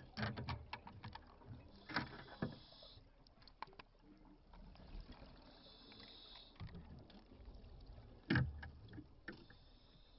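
Underwater sound from a hydrophone: irregular clicks and knocks over low bubbling, with a few short hissing bursts spaced several seconds apart and one louder knock near the end.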